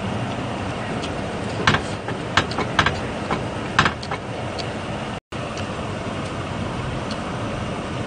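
Chopsticks clicking and tapping against a pan and grill plate, a cluster of sharp taps between about one and a half and four seconds in, over a steady rushing background noise. The sound cuts out for an instant about five seconds in.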